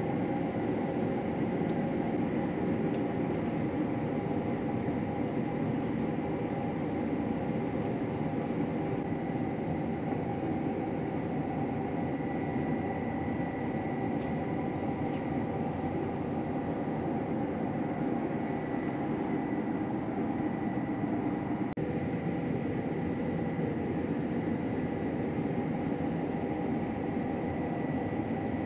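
Combine harvester running steadily while cutting wheat, heard from inside the cab: a constant machine drone with a thin, steady high whine over it.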